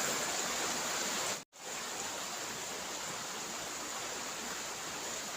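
Steady rush of flowing water, like a stream, with a sudden brief dropout about one and a half seconds in where the audio is cut.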